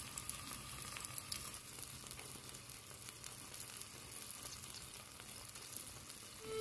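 Faint sizzling and bubbling of a small pot of potato and tomato curry simmering over a fire, with many small irregular crackles.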